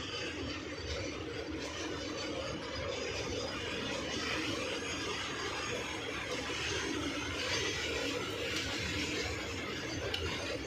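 Goods train wagons rolling past close by, a steady noise of steel wheels running on the rails that never lets up.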